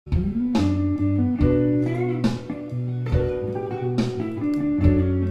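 Intro music on guitar: plucked notes struck every half second or so over a steady low note, some bending in pitch.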